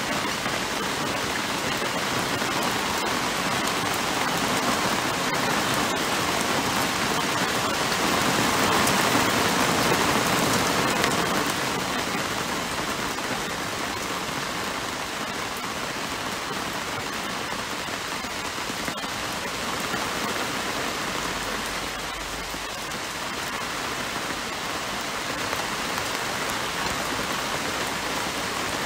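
Heavy rain falling on a patio: a dense, steady rush that swells louder about a third of the way in, then eases back a little.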